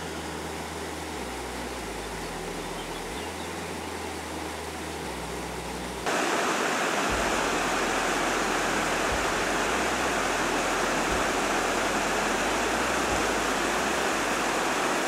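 Rushing water of a swollen, muddy stream in flood: a steady noise that gets suddenly louder about six seconds in.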